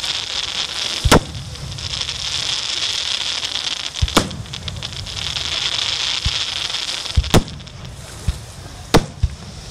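Aerial firework shells bursting: six sharp bangs a few seconds apart, two of them in quick pairs near the end, over a steady hiss.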